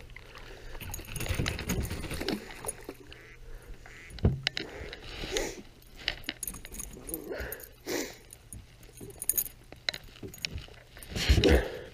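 Fishing tackle being handled as a hooked fish is reeled in and lifted into a boat: scattered metallic clicks and jingles, with a dull knock about four seconds in and another near the end.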